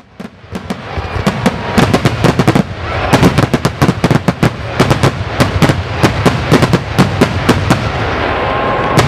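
Fireworks display barrage: a rapid run of sharp firework bangs and bursts that builds up over the first couple of seconds into several reports a second, then thins out, with a final bang near the end.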